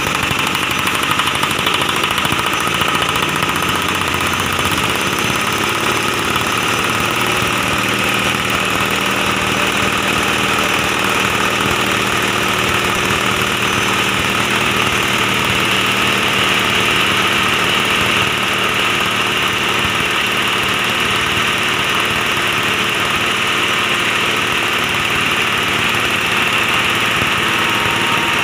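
Grass-chopper hammer mill running steadily and loudly while rice husks are pressed into its hopper and ground into fine bran.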